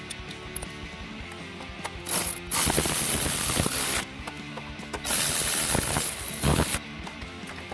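A power ratchet wrench runs in two bursts of about two seconds each, with a strong hiss, while fastening parts on an engine. Background guitar music plays underneath.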